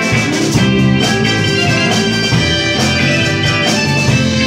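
Live rock band playing an instrumental passage: electric guitars over a steady drum kit beat and bass line.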